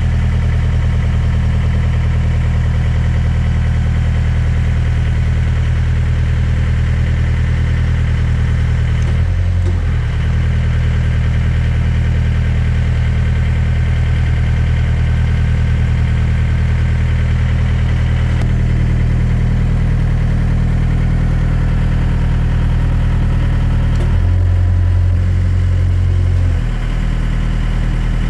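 Excavator diesel engine running steadily, its note shifting briefly about a third of the way in and again for a few seconds near the end.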